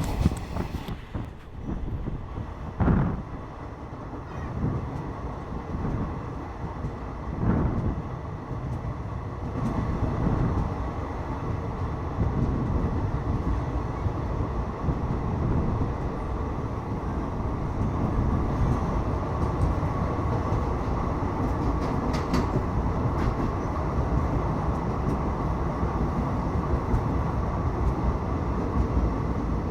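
A train running along the track: a steady rumble of wheels on rail, with a few knocks early on that settles into a steadier, slightly louder rumble about a third of the way in.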